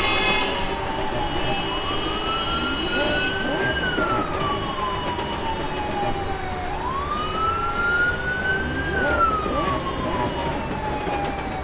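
Wailing emergency-vehicle siren sound effect, sliding slowly up and falling back in sweeps of about five seconds each.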